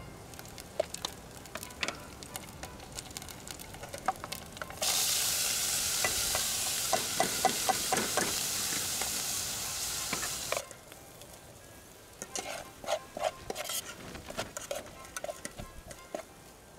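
Chopped onion hits hot olive oil in a small metal camp pot about five seconds in and sets off a loud, even sizzle, with a spoon clinking against the pot. The sizzle stops suddenly some six seconds later. Scattered scrapes and taps of a metal spoon stirring the onion in the pot follow.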